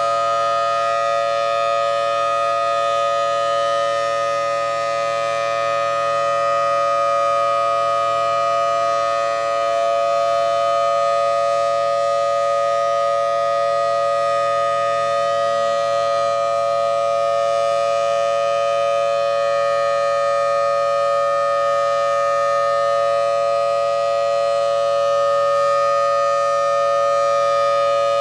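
Federal Thunderbolt 1003 civil defense siren sounding a full alert, a loud, steady wail held at one pitch. Its rotator is broken, so the horn stays fixed and the sound keeps an even level, without the usual swell of a rotating horn.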